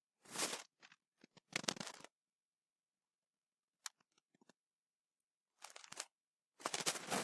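A computer mouse's scroll wheel being spun in short bursts close to the microphone: four louder scratchy, ratcheting bursts of about half a second each, with a few smaller ones between, and a single sharp click near the middle.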